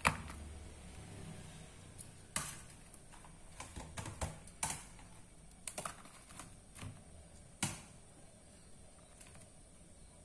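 Metal tongs clicking and tapping as fried tempeh pieces are picked up and set into thin plastic food containers: a dozen or so irregular sharp clicks, the loudest at the very start and again near the end.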